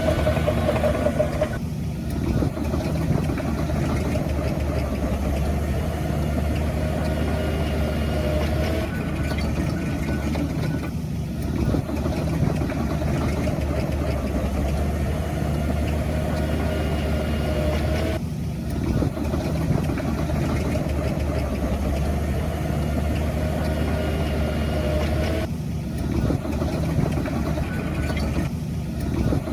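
Diesel engine of heavy earthmoving machinery running steadily, with a few brief dips where the sound drops for a moment.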